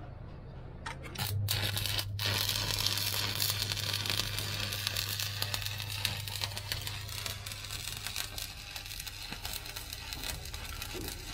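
Stick (arc) welding on a steel truck chassis: the arc is struck about a second in after a few clicks, then crackles and sizzles steadily over a steady low hum.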